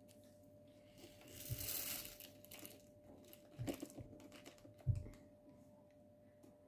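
Handling of diamond painting supplies: a small plastic zip bag of drills rustles briefly about a second and a half in, and small clear plastic storage pots knock and click against the table a few times. A faint steady hum sits underneath.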